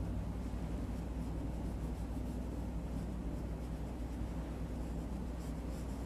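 Pointed Chinese painting brush stroking and dabbing on paper, faint soft brushing sounds, a little clearer near the end, over a steady low hum and hiss.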